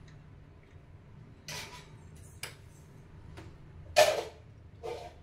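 A spoon knocking and scraping against a glass bowl in a few short strokes, the loudest about four seconds in, over a low steady hum.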